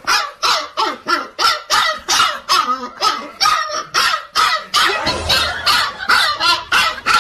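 Husky puppy barking in a rapid, unbroken string of high yaps, about three a second.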